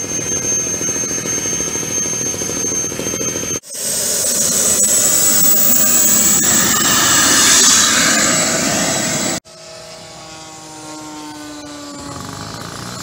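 Radio-controlled model jet's miniature turbine engine running, a steady high whine over rushing exhaust noise. It comes in three cut-together stretches: the second is louder and grows louder still, and the last is fainter, with tones that fall in pitch.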